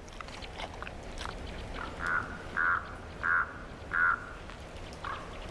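Common raven croaking: four short, harsh calls in a quick even series about two seconds in, then a fainter fifth call near the end, over a low background.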